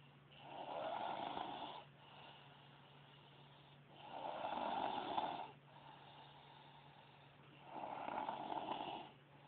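A young woman snoring loudly in her sleep: three long snores at an even pace, about four seconds apart, with quieter breathing between them.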